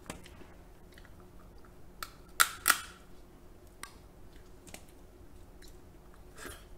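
King crab claw shell cracked open by gloved hands: two sharp cracks about a third of a second apart, roughly two and a half seconds in, with faint small clicks of shell around them.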